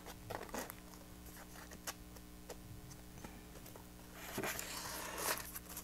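Cardstock pieces being handled and turned around on a work surface: scattered light taps and clicks, then a louder rustling slide of paper about four seconds in.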